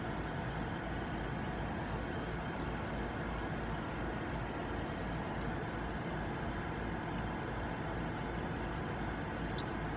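Steady low rumble and hiss of a car cabin's background noise, with a few faint light clicks a couple of seconds in.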